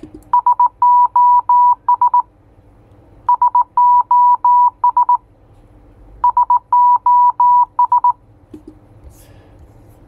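Morse code beep sounding SOS three times over: three short dots, three longer dashes, then three dots again. A pause of about a second separates each repeat.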